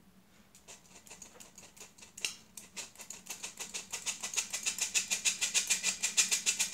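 Fork tapping rapidly and steadily against a metal flour sieve to shake flour through, starting faint and getting louder as it goes.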